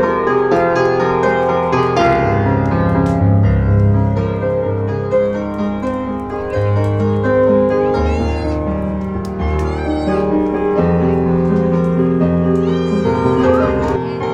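Music led by piano, with held notes and chords, and a few short high squeaks about two-thirds of the way through.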